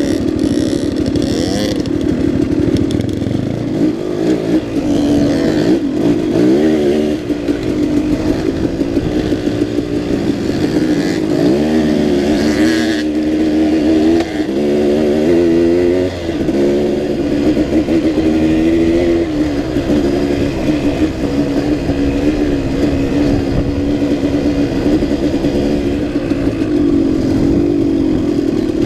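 2006 KTM 200 XC-W's two-stroke single-cylinder engine running under way on a rocky trail, its pitch rising and falling again and again with throttle and gear changes. A brief knock comes about halfway through.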